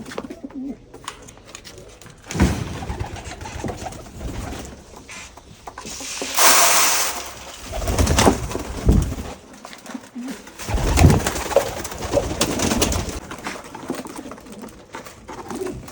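Domestic pigeons cooing at feeding time, mixed with handling knocks and a burst of rustling noise around the middle.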